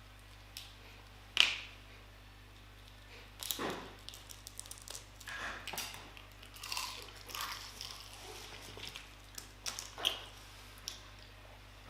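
Close-up eating sounds: scattered crunching and chewing, with a sharp snap about a second and a half in and another near the end.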